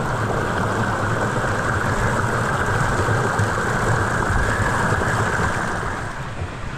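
Creek water pouring over a boulder into a rock pool in a small cascade: a steady rushing splash that fades somewhat near the end.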